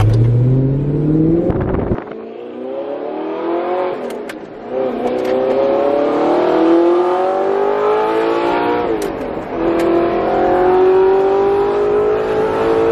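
Audi R8's 4.2-litre V8 through an aftermarket Fi valved exhaust with the valves open, heard from inside the cabin under hard acceleration: the engine note climbs in pitch in about four pulls, dipping briefly at each gear change.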